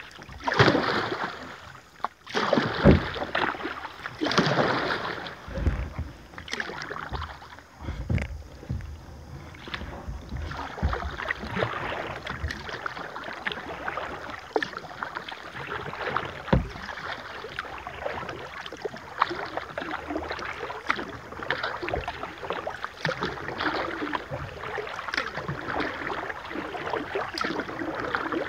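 Kayak paddling: the paddle blades splash in the river, with several louder strokes in the first few seconds, then a steady patter of water dripping and lapping along the kayak as it glides.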